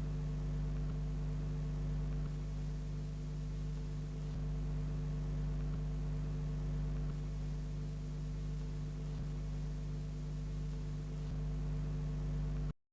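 Steady electrical hum with a faint hiss in the soundtrack, with no speech or music, cutting off abruptly near the end.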